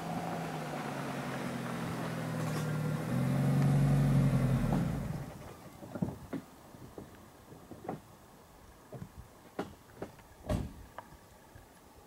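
A vehicle's engine running steadily, getting louder and dropping in pitch about three seconds in, then dying away about five seconds in. After that, a few scattered light clicks and knocks.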